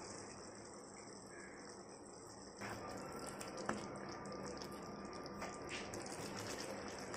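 Mutton nalli gravy simmering in a frying pan, a faint steady bubbling hiss, with a few light knocks of a wooden spoon against the pan.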